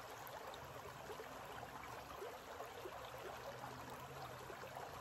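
Shallow creek running over rocks, a faint, steady babble of flowing water.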